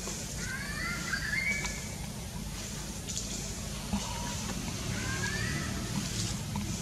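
Faint high whistled calls that rise in pitch, in a bout about half a second in and a shorter one about five seconds in, over a steady low rumble.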